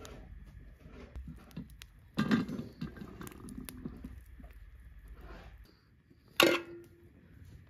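Metal cookware being handled: a louder scraping knock about two seconds in, scattered light clicks, and a sharp metal clank near the end that rings briefly.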